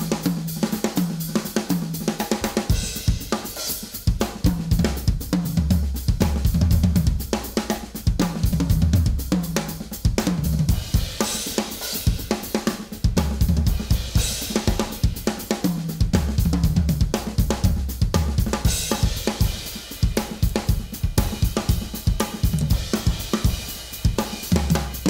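Drum kit played fast and busy in a band performance: rapid snare and kick-drum strokes with hi-hat, and cymbal crashes flaring up several times. Low bass-guitar notes move underneath.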